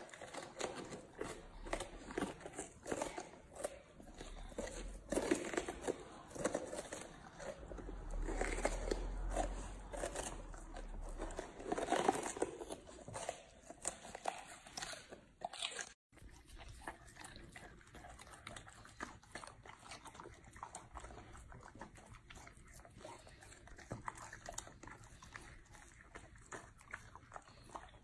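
Two golden retrievers biting and chewing raw green bell peppers: a run of irregular crisp crunches. About sixteen seconds in it cuts to a much quieter stretch with only faint scattered clicks.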